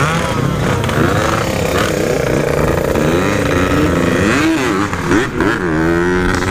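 Motorcycle riding sound of a Yamaha RX-King two-stroke with a stock-style aftermarket exhaust, the engine revving up and down, its pitch rising and falling several times.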